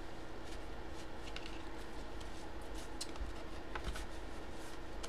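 Faint rustling and a few light ticks of a white paper envelope being handled and turned over in the hands.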